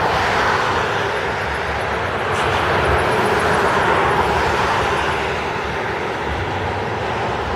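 Heavy thunderstorm rain pouring down in a steady hiss that swells a little in the middle and eases.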